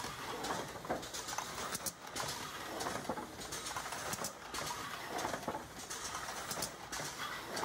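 Econocorp Spartan beverage cartoner running: a continuous irregular clatter of beer cartons and cans moving through the machine, with short sharp air hisses from its pneumatic actuators about two seconds in and again near the end.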